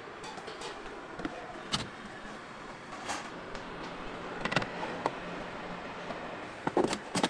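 Stainless-steel hotel pans knocking and clinking now and then as they are handled and set into a steam table, over a steady background hum.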